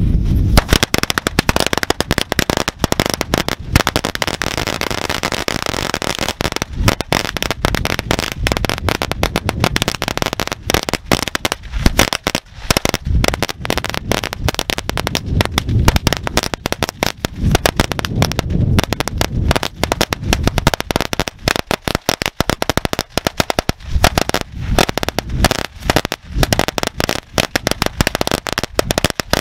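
A long string of firecrackers going off, a rapid unbroken run of sharp bangs and pops as it burns down the line.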